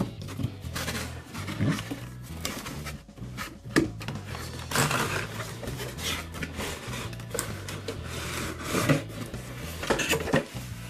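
Cardboard packaging scraping, rubbing and knocking as a plastic toy ambulance is worked out of its box, with irregular sharp knocks and longer scraping stretches, over steady background music.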